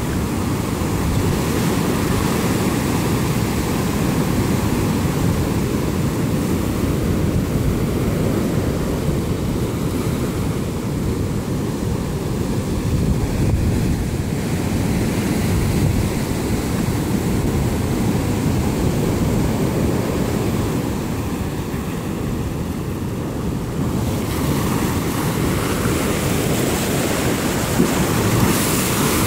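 Sea surf breaking and washing around boulders at the water's edge, a continuous rushing of foaming water that swells and ebbs. A wave crashes against a rock near the end.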